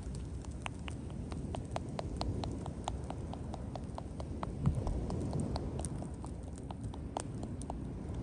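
Wood bonfire crackling: irregular sharp pops and snaps, several a second, over a low steady rumble of the burning fire.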